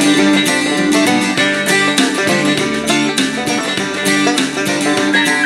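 Acoustic plucked-string music with guitar, in a bluegrass or country style, playing steadily through the RRS RS-661BT portable radio's speaker to show its audio quality.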